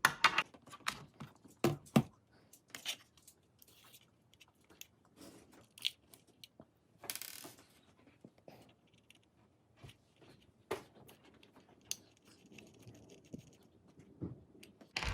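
Screwdriver driving small mounting screws into a Samsung SSD: scattered clicks, taps and short scrapes of the screws and tool against the drive, with a longer scrape about seven seconds in.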